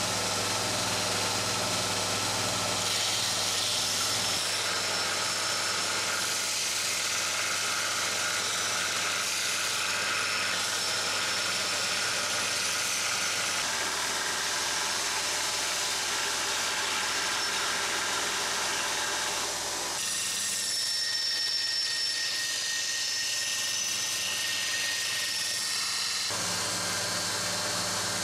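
Belt and disc sander running while the steel head of a firefighter's axe is ground on the moving belt to sharpen it: a steady grinding hiss over the motor's hum. The sound shifts abruptly every several seconds.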